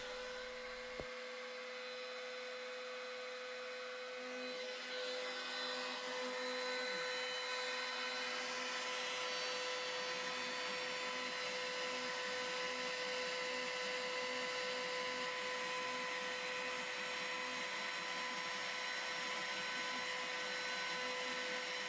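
Makita RT0702C trim router spinning as a CNC spindle, a steady high whine with a shop vacuum running through the dust shoe. From about six seconds in, a rougher noise of the bit cutting into scrap wood joins in and holds.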